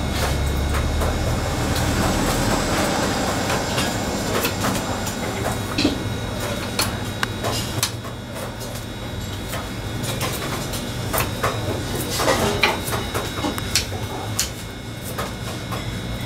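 Kitchen knife slicing lemongrass on a wooden chopping board: irregular sharp taps of the blade on the board, over a steady low hum.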